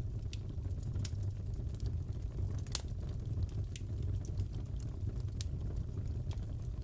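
Wood fire crackling in a fireplace: a steady low rumble with scattered sharp pops and snaps at irregular intervals, the loudest pop a little under three seconds in.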